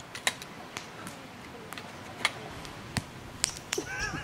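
Aluminium poles of a folding camp chair clicking and knocking as the frame is put together and the seat fitted: several sharp, separate clicks spread unevenly through the few seconds.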